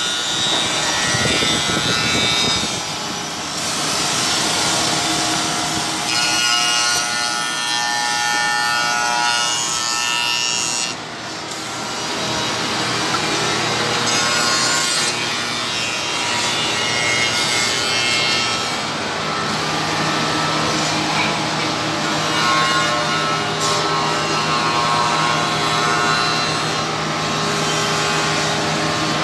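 Waylong CNC tenoning machine running, its motor-driven cutters shaping tenons on the ends of wooden parts: continuous rasping cutting noise with a whine that shifts in pitch. It dips briefly about a third of the way through.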